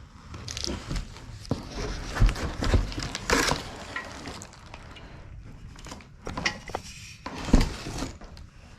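Small hard parts and tools clattering and knocking as they are handled, in an irregular run of clicks with a few sharper knocks a couple of seconds in and near the end.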